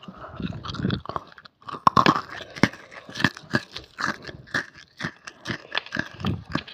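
Dalgona (brittle honeycomb sugar candy) being bitten and chewed close to the microphone: sharp crisp crunches at about two to three a second.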